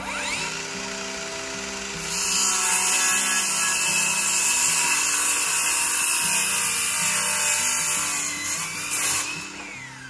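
Cordless power saw spinning up with a rising whine, then cutting through a wooden board for about seven seconds, and winding down with a falling whine near the end.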